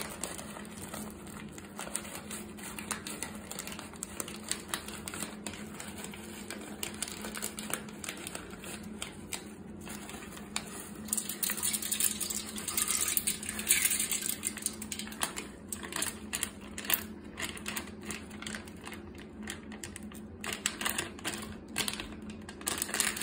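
Plastic snack bag crinkling and crackling in the hands, a run of small irregular clicks. About eleven seconds in, pumpkin seeds are poured into toilet bowl water, a splashy rush lasting a few seconds.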